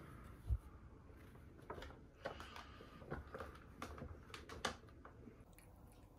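Light clicks and knocks from a cat shifting about in a clear acrylic dome bed on a cat tower, with one louder dull thump about half a second in.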